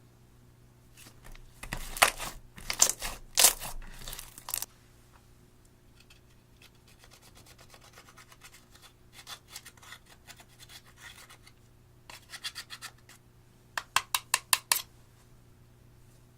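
Hands squishing and stretching clear slime, giving sticky crackles and clicks, loudest about two to four seconds in, and a quick run of about eight sharp pops near the end.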